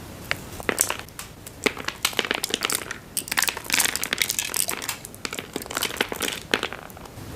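Candy wrapper packaging crinkling as it is handled: a dense run of sharp crackles starting about half a second in and thinning out near the end.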